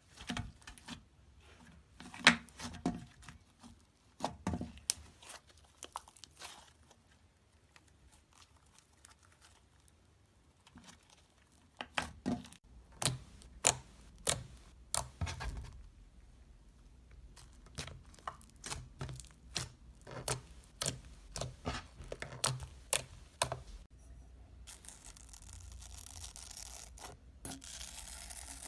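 Slime being squeezed and stretched by hand, giving irregular sharp crackling pops and snaps. It ends in a few seconds of steady rustling hiss.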